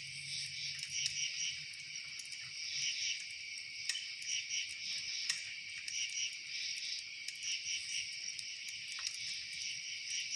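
A steady chorus of crickets chirping, high and dense with quick pulsing, with a few sharp faint clicks here and there, like twigs crackling in a campfire.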